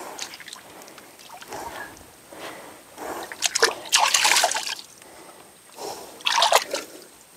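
Muddy water sloshing and splashing as hands work in the flooded mud around a sunken hand tractor's wheel, with two louder spells of splashing, about halfway through and again near the end.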